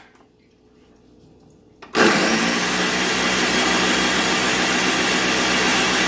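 Countertop blender switched on about two seconds in and running steadily at full speed, giving a thin liquid batter a short blend to work in the baking powder just added.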